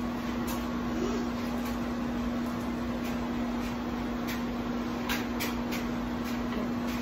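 Steady mechanical hum with one constant low tone, with a few faint short scratchy sounds every so often.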